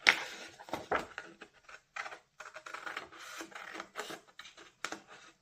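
Scissors cutting through printed card, irregular rasping snips and rustling of the sheet, with a sharp click or snip at the start and a few more during the cutting; it cuts off abruptly near the end.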